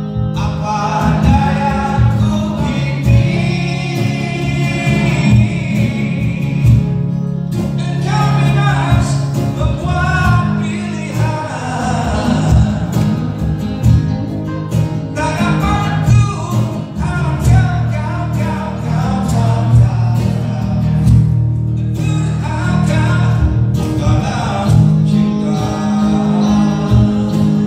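Band music with a singing voice over guitar and a steady, prominent bass line.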